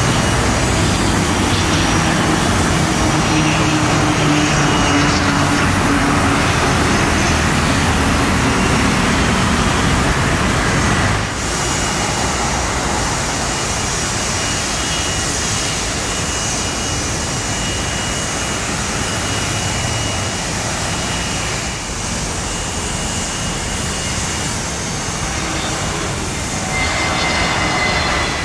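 Aircraft engines in three stretches split by cuts. First an ATR 72 turboprop arriving, with a steady propeller hum. Then a Boeing 757's jet engines running while it waits to depart, and finally an Airbus A320 jet arriving, with a slowly falling whine near the end.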